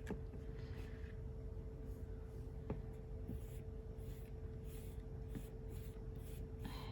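Paintbrush strokes on card stock: soft, repeated scratchy swishes of a brush laying watercolour paint onto thick paper, with a couple of light clicks.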